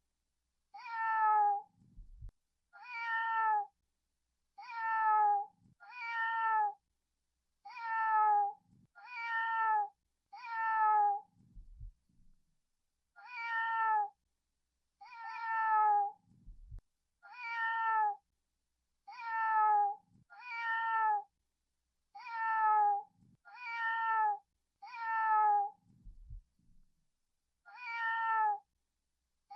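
Domestic cat meowing over and over: about sixteen short meows, each gliding slightly down in pitch, one to three seconds apart. A few faint low thuds fall between some of the meows.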